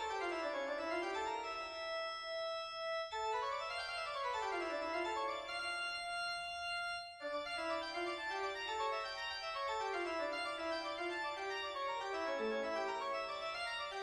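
Instrumental background music on a keyboard instrument: quick runs of notes that climb and fall in repeating arpeggio-like phrases.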